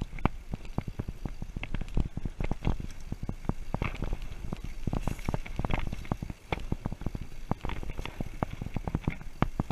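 Mountain bike rattling over a rough dirt trail: a fast, irregular stream of knocks and clatter from the bike jolting on the ground, over a steady low rumble.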